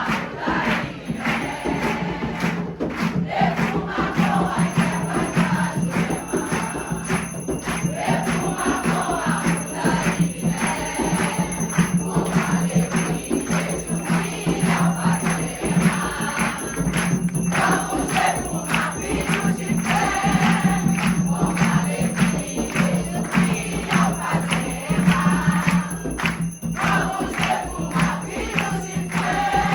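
A group of people singing together over steady percussion, with jingling bells or rattles keeping time.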